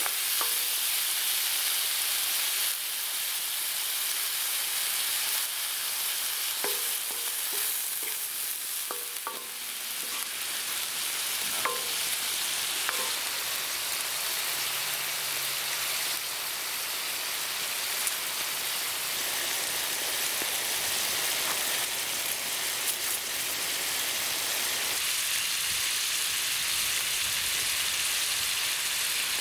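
Meat sizzling and frying on a hot cooking disc over a campfire, a steady high hiss, with a few light clicks and knocks about a quarter to halfway through.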